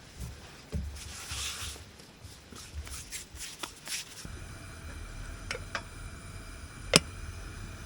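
Hands rounding small balls of soft brioche dough on a work surface: soft rubbing and light taps, with one sharp click about seven seconds in.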